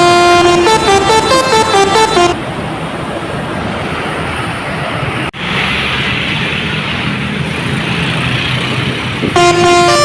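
Bus 'telolet' multi-tone musical horn (Basuri type) playing a quick stepped melody, which stops about two seconds in. Then steady engine and traffic noise, briefly cutting out about five seconds in, before the horn melody starts again near the end.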